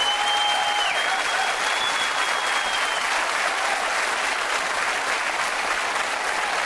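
Large studio audience applauding steadily, a dense even clatter of many hands clapping. A thin high held tone sits faintly over the clapping for the first three seconds, then fades.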